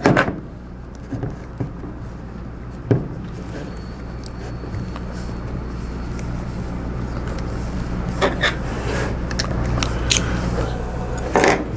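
Scattered metal clicks and knocks as a Sherline mill headstock with its motor is fitted back onto the Z-axis saddle, over a steady low hum that slowly grows louder.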